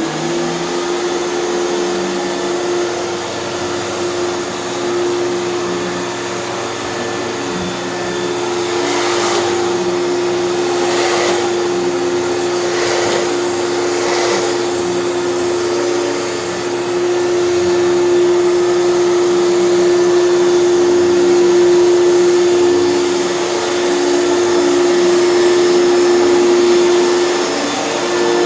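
Hoover canister vacuum cleaner running steadily: an even motor whine over the rush of suction air. It gives four short swishes of extra air noise about a third of the way in and grows slightly louder past the halfway point.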